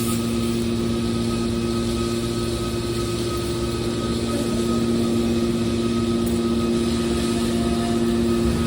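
Scrap copper baler's hydraulic power unit running, a steady machine hum with a constant pitch.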